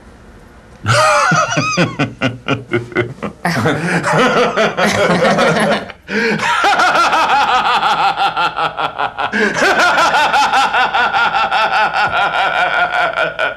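A man and a woman laughing heartily together. The laughter begins about a second in, breaks briefly near the six-second mark, then runs on as a long string of quick 'ha-ha' pulses.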